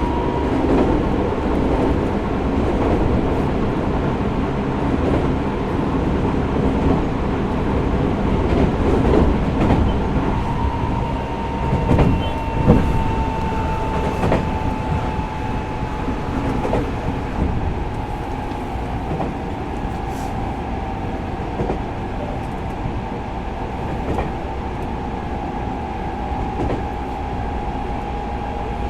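Tokyo Metro 05 series subway car running between stations, heard from inside the car: steady rolling noise with a few knocks over rail joints about twelve seconds in, and a thin whine that slowly falls in pitch through the second half.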